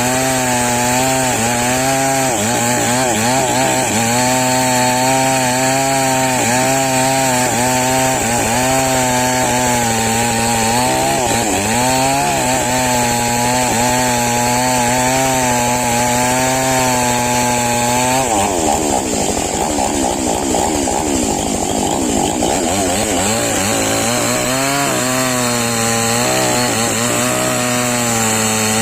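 Chainsaw engine running at speed, its pitch dipping and recovering again and again. About eighteen seconds in, the note drops and wavers for several seconds, then settles back into steady running.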